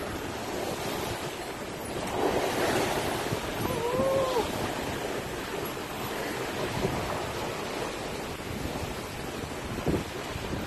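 Water rushing and splashing along the hull of a heeled sailboat under way, with wind buffeting the microphone; the rush swells about two seconds in. A brief rising-and-falling tone sounds near four seconds, and there is a single knock near the end.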